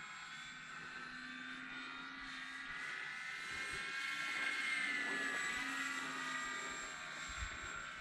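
Electric motor and propeller of a Dynam Hawker Hurricane V2 radio-control warbird in flight: a steady whine that swells louder about halfway through and bends slightly in pitch as the plane passes, then eases off.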